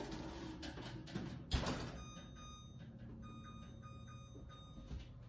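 An oven door shuts with a thump about one and a half seconds in, then a run of short electronic beeps as a 5-minute timer is keyed in.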